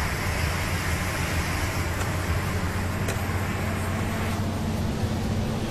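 Heavy truck's diesel engine running steadily at cruising speed, heard inside the cab as a low drone over tyre and road noise.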